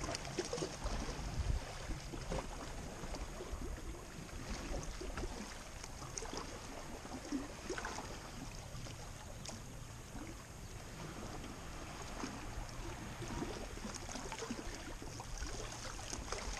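Small sea waves lapping and splashing against the rocks below, a steady wash of water with many small ticks and splashes, over a low rumble of wind.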